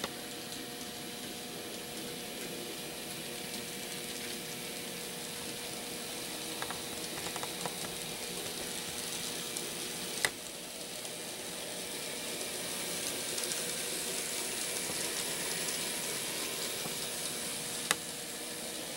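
N scale model train running on the track: a steady hiss and whir of the small locomotive motors and metal wheels on the rails, with a few sharp clicks, growing a little louder in the second half as the train comes closer.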